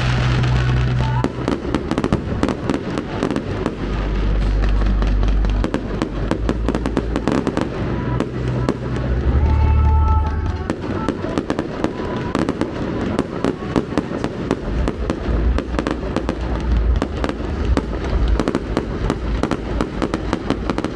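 Fireworks display going off continuously: a dense run of rapid crackles and sharp bangs over deep, rolling booms.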